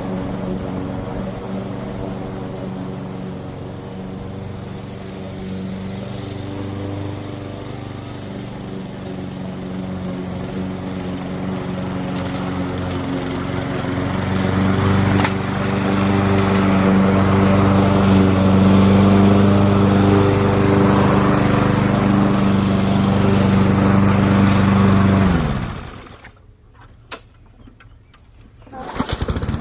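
Small engine of a Weed Eater walk-behind lawn mower running steadily, getting louder about halfway through. About 25 seconds in the sound drops away abruptly for roughly four seconds, then the engine is heard again.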